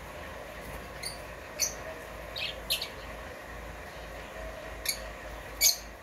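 Rosy-faced lovebirds giving short, shrill chirps, about six of them spaced out over a few seconds, the last the loudest.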